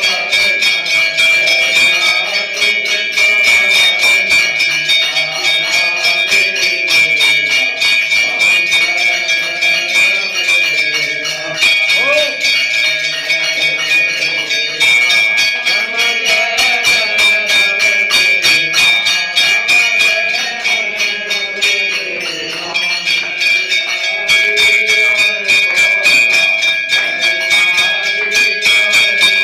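Temple bells rung rapidly and continuously for an aarti, keeping up a steady metallic ringing. Voices sing the aarti melody underneath.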